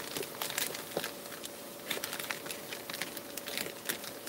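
A white mailing bag crinkling and rustling in irregular little crackles as it is handled and worked open by hand.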